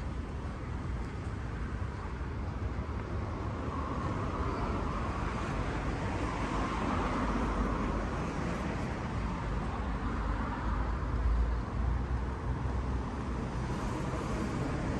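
Road traffic going by: a steady rumble of passing cars, swelling louder for a few seconds near the middle.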